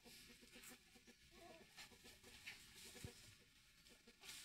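Faint clucking of chickens, with a light knock about three seconds in.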